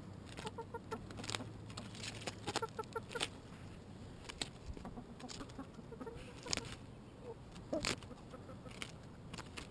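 Domestic chickens clucking in runs of short repeated notes while they peck at mustard greens, with sharp taps from their beaks striking and tearing the leaves.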